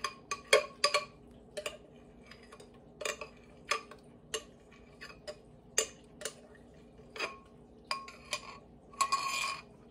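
Irregular sharp clicks and light taps, about one or two a second, some with a short ring, as a glass measuring cup is tipped out and drained into a stainless steel stand-mixer bowl.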